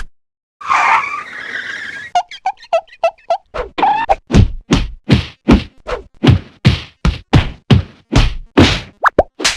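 A rapid series of whack sound effects: after a short noisy burst, quick hits give way to a steady run of strikes, about two to three a second, each with a falling swoosh.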